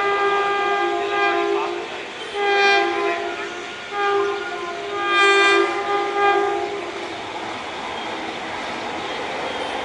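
WCAM-1 electric locomotive's two-tone horn sounding in three long blasts, the first already under way, the pitch shifting between tones within the blasts. After about seven seconds the horn stops and the steady rush of the express passing at speed takes over.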